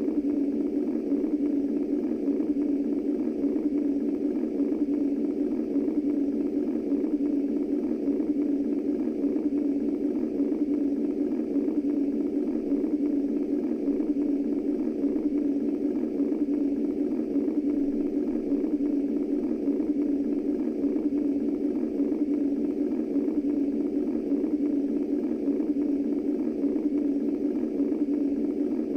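Womb-sound white noise for soothing babies: a steady, muffled low whooshing hum, even in level, with no heartbeat or other pulse.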